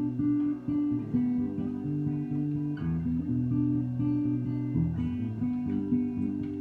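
Acoustic guitar playing an instrumental passage of held chords and notes that change every second or so.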